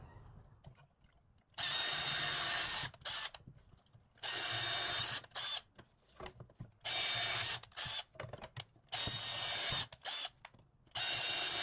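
Black+Decker cordless drill boring starter holes through MDF board in five short runs of about a second each, with pauses between them. The holes let the scroll saw blade be threaded into the closed parts of the letters.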